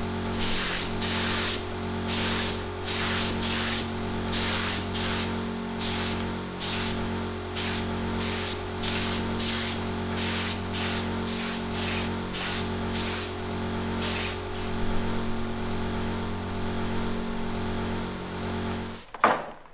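Short hissing bursts of paint being sprayed, about twenty in quick succession, over a steady electric hum that cuts off suddenly near the end.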